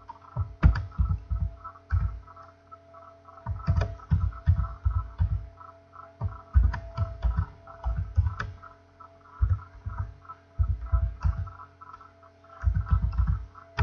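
Typing on a computer keyboard: several bursts of keystrokes with short pauses between them, the strokes dull and low, over a faint steady hum.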